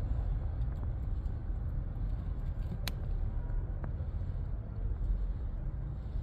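A steady low outdoor rumble, like distant traffic or wind, with faint clicks as a cat eats wet food and one sharper click about three seconds in.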